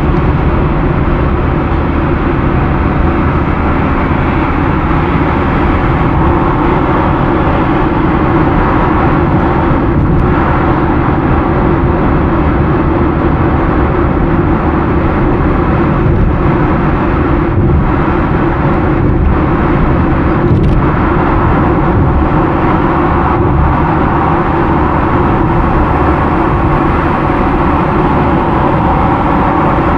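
Steady road and engine noise of a car driving at highway speed, heard from inside the cabin, with a few faint knocks in the second half.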